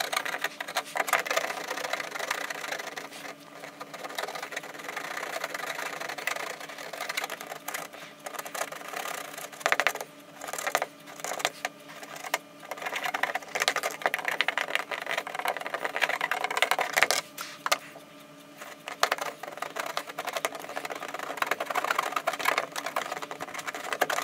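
Hot tip of a plastic welder scraping and rattling over wire mesh as it presses the mesh into a polyethylene water tank: a continuous scratchy, clicking rasp in irregular spells, with brief pauses. A faint steady hum runs beneath.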